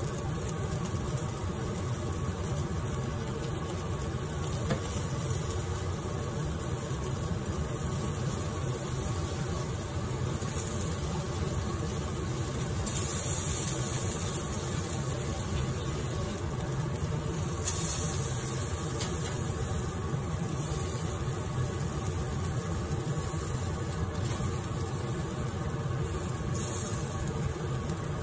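Portable butane gas stove burner running steadily under chicken wings on a wire grill, a constant low rumble. Now and then comes a brief hiss of fat sizzling on the heat.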